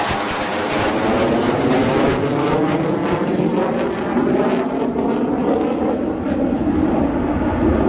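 F-15 fighter's twin turbofan engines, loud and steady as the jet passes overhead and pulls up into a climb. The pitch sweeps as it goes by, and the high hiss fades from about halfway as it draws away.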